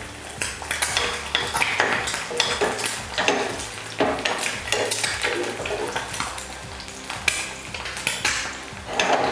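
An egg frying in hot oil in a pan, sizzling steadily, while a metal utensil scrapes and taps against the pan again and again.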